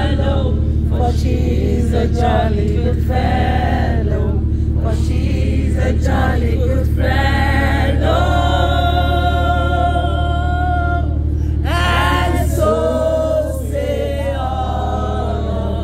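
A group of voices singing a song together, with long held notes, over a steady low hum.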